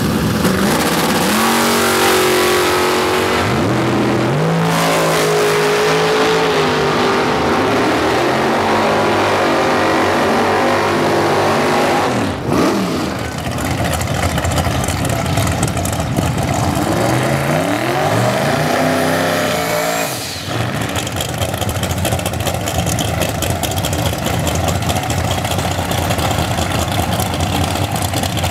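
Drag-racing V8-type engines revving hard and running, the pitch climbing and falling with each rev: first a Chevy S10 drag pickup, then a 1960s Chevrolet El Camino drag car. Abrupt cuts about twelve and twenty seconds in, with a steadier engine sound in the last stretch.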